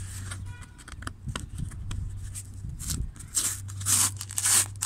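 Fingers scratching and picking at sealing tape on a cardboard box, then the tape peeling away from the cardboard in a few short rasps in the second half.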